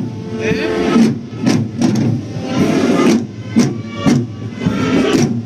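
Tamborrada drum corps playing a march rhythm on drums and wooden barrels, with strong strokes roughly twice a second.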